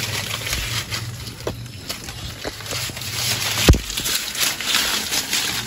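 Leaves and sticks rustling and clicking as hands search through a leaf-lined shrimp trap, with irregular small knocks and one heavy thump about two-thirds of the way through.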